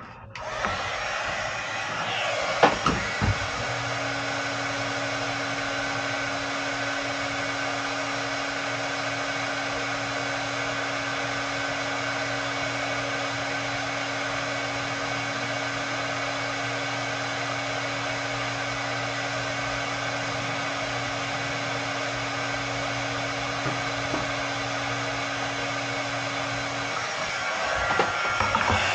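Electric heat gun blowing steadily. A steady hum joins in a few seconds in and drops out a couple of seconds before the end, and there are a few knocks a few seconds in.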